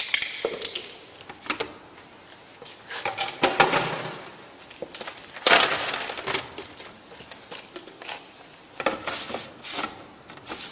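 Hard plastic cap and chlorine cartridge of a Frog pool purifier being handled, scraping, knocking and clicking in irregular bursts as the cap is lifted and pressed back on.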